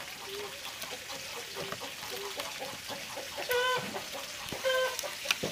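Chickens clucking: a few soft low clucks, then two louder short calls about a second apart in the second half. A sharp click comes just before the end.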